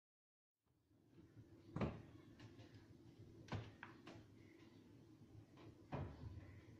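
A shelved cupboard door opening, heard faintly, with light handling noise and three soft knocks: about two seconds in, in the middle, and near the end.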